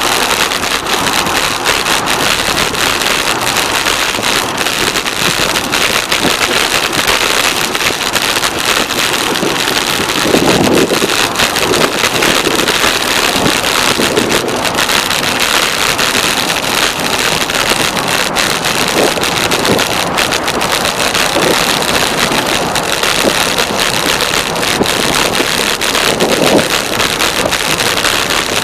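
Steady wind rushing over the microphone from riding a bicycle at speed, with brief louder swells about ten seconds in and near the end.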